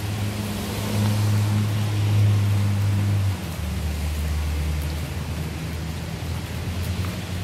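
Low steady hum of a nearby engine running over a constant hiss of outdoor noise; the hum is louder for the first few seconds, then drops slightly in pitch a little over three seconds in.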